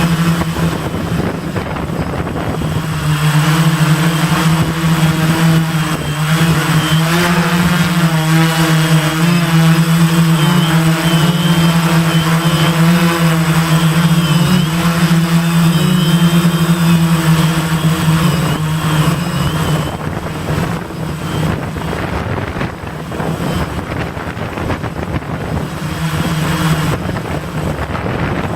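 Gaui 500X quadcopter's electric motors and propellers humming in flight, a steady drone with a higher whine above it that wavers in pitch. It is loudest through the middle and eases off for the last third, with a brief swell near the end.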